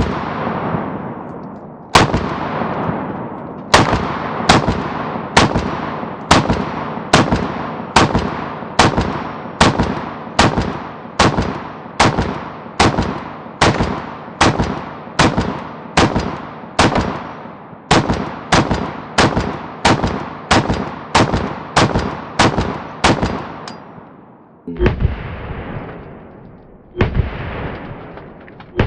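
Gunfire: a long string of rapid single shots, roughly one to two a second and speeding up, each a sharp crack with a ringing tail. Near the end come two heavier, duller reports about two seconds apart.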